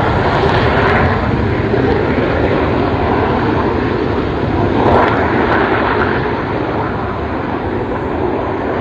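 Jet aircraft engine running as the jet rolls away down the runway, a steady rushing roar that slowly fades as it moves off.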